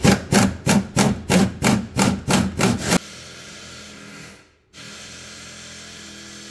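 Hand ratchet loosening the brake master cylinder's mounting nut: about nine quick back-and-forth strokes in three seconds, each a rasping burst of clicks. Then the ratcheting stops and a steady low hum remains.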